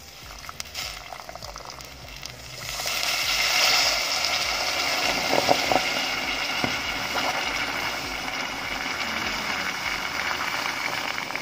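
Water pouring in a steady stream into a saucepan of sugar to make syrup; it comes in about two and a half seconds in and runs steadily on.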